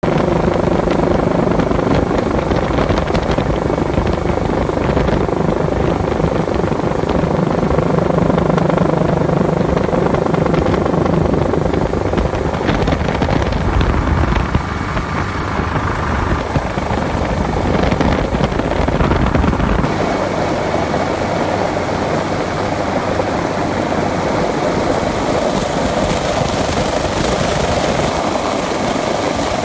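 Rescue helicopter's turbine engines and rotor running loud and steady, heard from the open cabin door while the helicopter moves into a hover, with a high steady turbine whine over the noise. The low rumble thins out about two-thirds of the way in.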